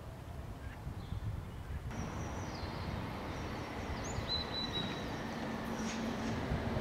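Bombardier Flexity Swift (SL Class A32) tram approaching, a steady low hum growing slowly louder. Birds chirp a few times over it.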